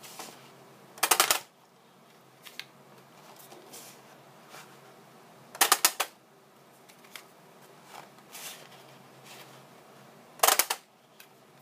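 Large tag punch cutting tags from cardstock: three sharp clacks about four and a half seconds apart, each a quick cluster of clicks, with faint paper rustling between them.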